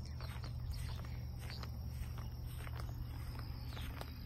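Footsteps through mown grass, with scattered soft rustles and clicks over a steady low rumble.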